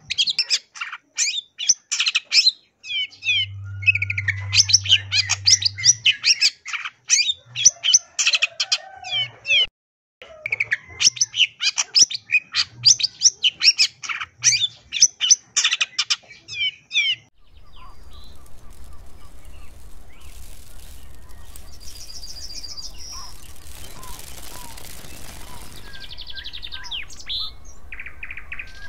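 Long-tailed shrike singing a fast, unbroken string of high chirps and varied short notes, a song packed with mimicked calls of other birds. About two-thirds of the way through the song stops and a steady low hiss with a few faint calls takes over.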